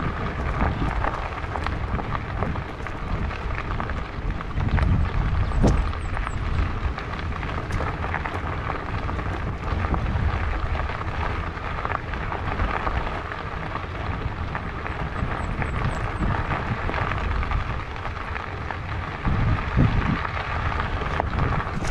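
Fatbike riding over a gravel track: the wide tyres crunching on loose stones, with a steady low rumble and many small clicks and rattles.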